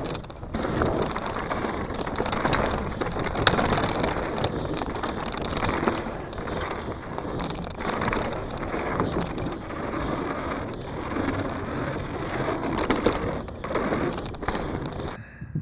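Downhill mountain bike ridden fast over a dirt and loose-rock trail: tyres crunching over gravel and the bike rattling over bumps, a steady noisy clatter that cuts off suddenly near the end.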